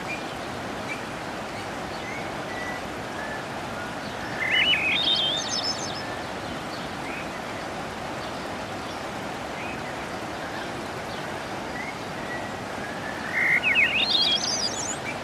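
Steady rushing water of a small waterfall on a mountain river, with a songbird twice singing a quick phrase of notes that climb in pitch, and faint short chirps in between.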